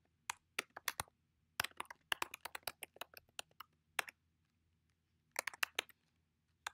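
Typing on a computer keyboard: quick runs of key clicks in short bursts, with a pause of about a second past the middle.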